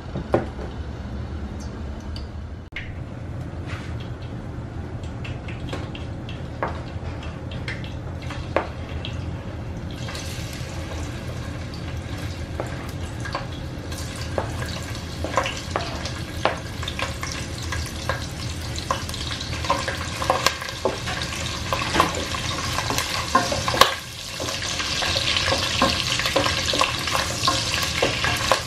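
Pieces of meat sizzling as they fry in hot oil in a nonstick pot, stirred with a wooden spoon, with scattered clicks and scrapes of the spoon and the pieces dropping in. The sizzling starts about a third of the way in and is loudest near the end, over a low steady hum.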